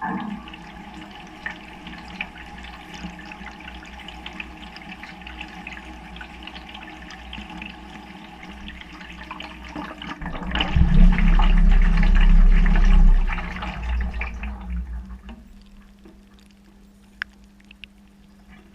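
Water sloshing and churning inside a front-loading washing machine drum as it turns, heard from inside the drum. About halfway through a much louder low rumble runs for a few seconds, then the sound drops to a quiet steady hum.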